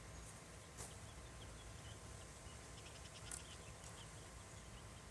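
Near silence: faint background hiss and hum, broken by two soft clicks, one about a second in and one a little past three seconds.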